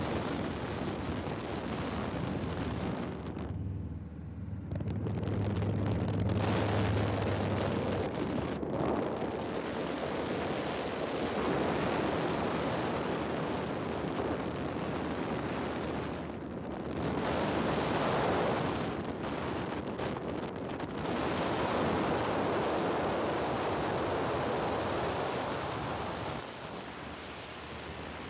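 Wind rushing over the microphone with a low, steady engine hum underneath, as heard from an aircraft in flight. The rush swells and eases several times.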